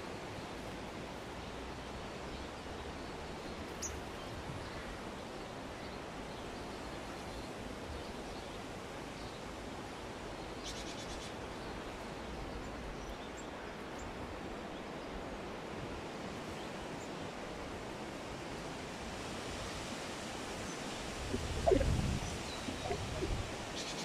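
Steady outdoor rural ambience, an even hiss, with a few faint bird chirps. About two seconds before the end, a brief, louder low rumble.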